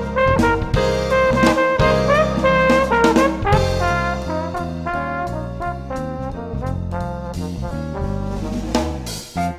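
Background music: upbeat jazz with brass and drums.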